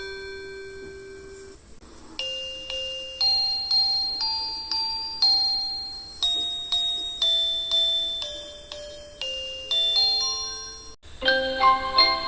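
Japanese train in-car announcement chimes: a slow electronic melody of bell-like struck notes, about two a second, each ringing and fading. It is cut off abruptly just after eleven seconds, and a different, faster chime starts straight after.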